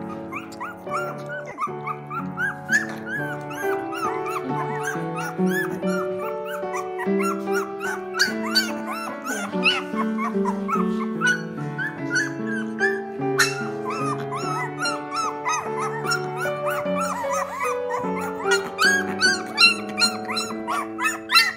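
Background music, with puppies whimpering and yipping in many short squeals that rise and fall in pitch.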